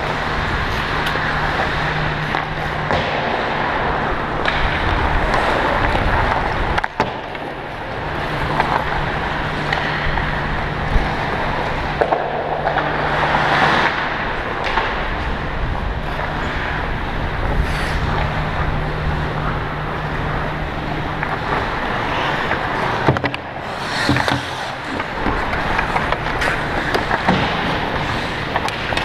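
Ice-hockey skate blades gliding and scraping on rink ice close to the microphone as the wearer skates, a continuous rushing swish with a few sharp clicks, over a steady low hum.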